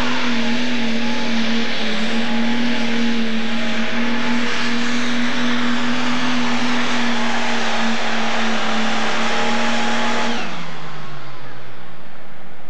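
International 1066 super stock pulling tractor's turbocharged 466-cubic-inch diesel running flat out under full load, a steady high drone as it drags the weight-transfer sled. About ten seconds in the engine is throttled back and its pitch falls away as the pull ends.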